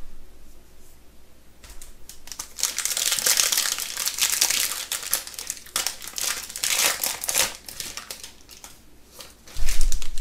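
A trading-card pack wrapper being torn open and crinkled in the hands, with crackling from about two seconds in until about seven and a half seconds. A loud bump comes near the end.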